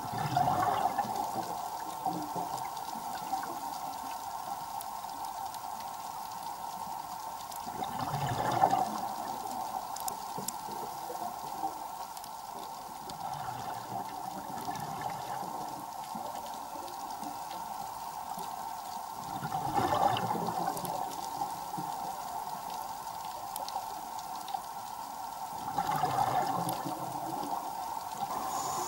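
Underwater bubble noise, most likely a scuba diver's exhaled bubbles from the regulator, rushing up four times several seconds apart over a steady hum.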